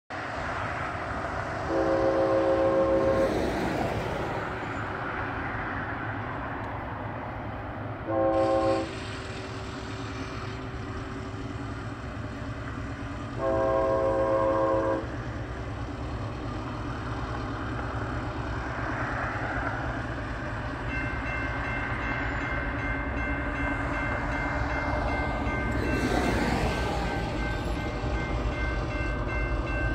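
Union Pacific diesel freight locomotive's multi-chime air horn blowing for a grade crossing: a long blast, a short one, then another long one, over a diesel rumble that grows louder as the train approaches. About two-thirds of the way through, the crossing's signal bell starts ringing rapidly.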